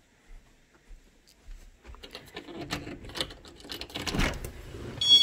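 An interior door's knob and latch rattling and clicking as the door is unlatched and pulled open, loudest about four seconds in. Right at the end a loud, high, steady tone starts.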